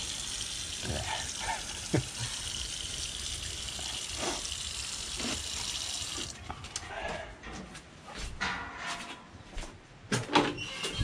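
Water running from a tap into a small washbasin while hands are rinsed, shut off abruptly about six seconds in; a few light knocks and handling sounds follow.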